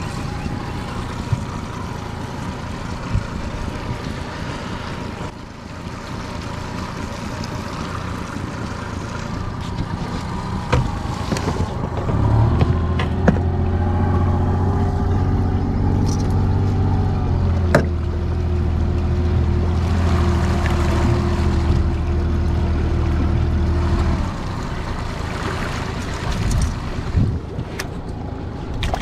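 Four-stroke outboard motor running with the boat under way, over a steady wash of water and wind. About twelve seconds in, a steady engine hum rises sharply and holds for roughly twelve seconds, then drops away; a few light knocks are scattered through.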